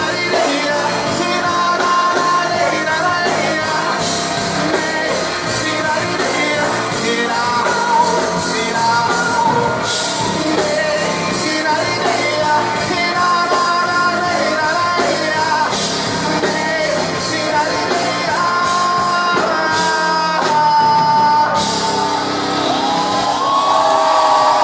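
Live rock band playing: a singer's voice carrying the melody with long held notes over electric guitar, bass guitar and drums.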